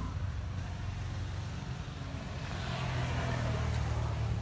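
A motor vehicle's engine hums low and steady, with a louder wash of noise swelling for a second or two past the middle.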